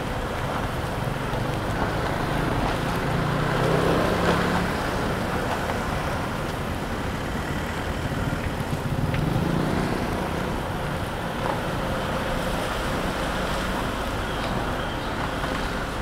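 Car driving on a road: steady tyre and road noise with a low engine hum, swelling a little about four seconds in and again around nine seconds.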